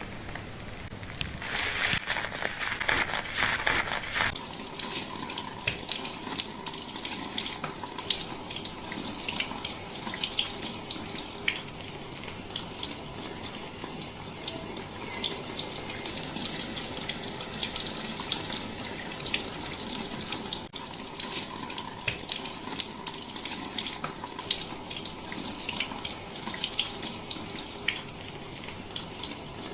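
Water running from a salon shampoo-basin tap or sprayer over hair being washed: a steady rush of water with many small splashes and wet ticks, fuller for the first few seconds.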